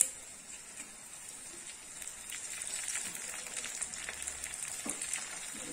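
Oil sizzling and crackling in a small tadka pan as dried red chillies fry with sliced onion, mustard seeds and cumin. The crackle grows louder about two seconds in. One sharp click right at the start.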